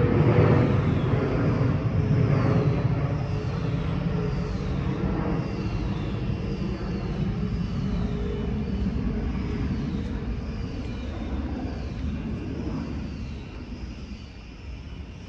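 Jet rumble from an Airbus A320-232's IAE V2500 turbofans, fading steadily as the airliner climbs away. A faint high chirp falls in pitch and repeats at an even pace above it.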